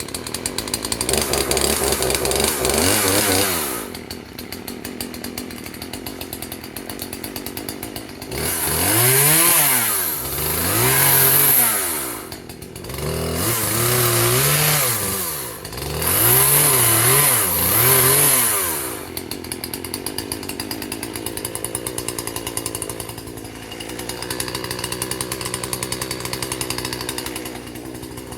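Chainsaw revving to full throttle four times in runs of a few seconds each, cutting limbs, and dropping back to a steady idle between runs and through the last third.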